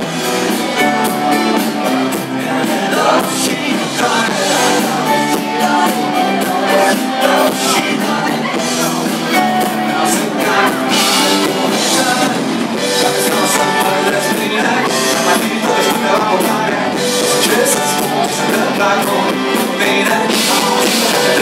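Live rock band playing a song, with singing over guitar and drums.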